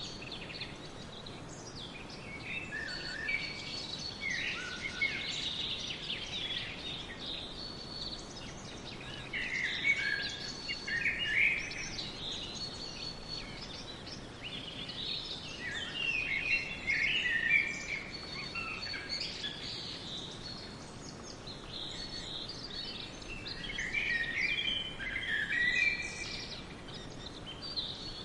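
Songbirds singing in a forest, with high chirping phrases coming in clusters every few seconds over a steady background hiss.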